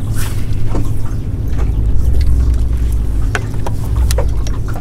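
A boat motor running with a steady low hum, with scattered light clicks and taps.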